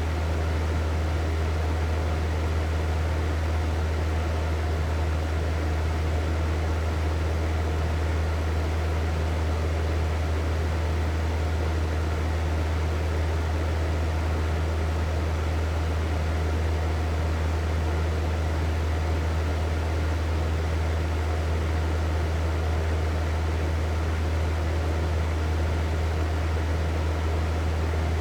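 Hair dryer running steadily: an even rush of blown air over a deep, constant motor hum, with no change in speed.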